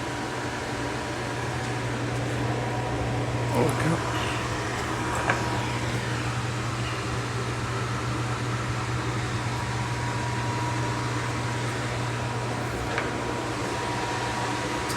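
EDEMCO F500 double dog dryer cage running: its blower fan gives a steady hum and rush of air, with a faint high whine.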